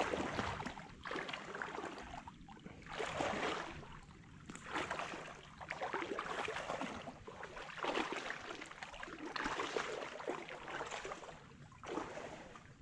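People wading through flooded swamp water, a sloshing swish with each stride, about one a second.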